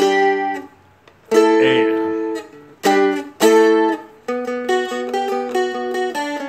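Seagull Merlin M4, a four-string dulcimer-style instrument, strummed in four ringing chords with short gaps between them. From a little past four seconds in it switches to a quick run of single picked notes.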